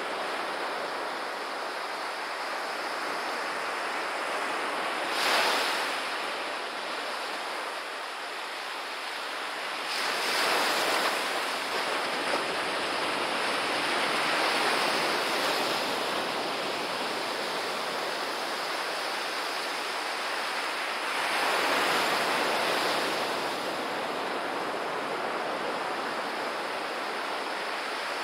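Surf breaking and washing up a sandy beach, the rush of water swelling with each breaker: a short surge about five seconds in, then longer ones around ten to sixteen seconds and again just after twenty seconds.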